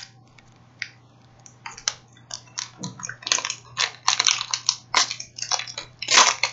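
Plastic wrapper of a Kit Kat bar crinkling and crackling as it is torn open, in a quick irregular run of sharp crackles that starts about two seconds in.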